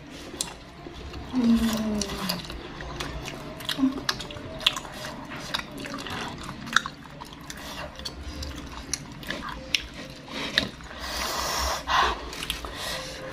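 Close-up chewing and wet mouth smacks from people eating chewy cilok skewers in chili sauce, with many small sharp clicks. A short low hum comes about a second and a half in, and a longer breathy sound comes near the end.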